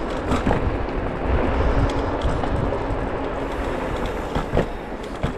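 Varla Pegasus electric scooter riding fast on a paved path: a steady rumble of tyres and rushing air, broken by a few sharp knocks and rattles.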